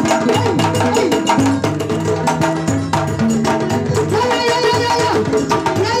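Live West African music: fast hand-percussion strokes over a line of low pitched notes. A higher melodic line joins about four seconds in.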